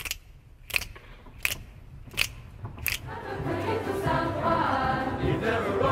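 Five sharp hand beats from a group of performers keep time, about one every three-quarters of a second. About three seconds in, a choir and orchestra come in and swell.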